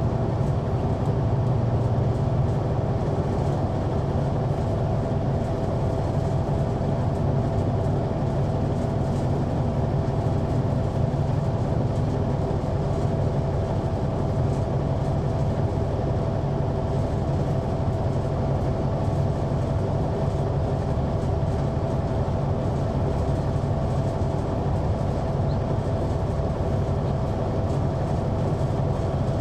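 Inside a 2004 Neoplan AN459 articulated transit bus moving along at a steady pace: its Caterpillar C9 ACERT diesel engine runs steadily under road noise. A low drone carries a constant thin tone, with no gear changes or braking.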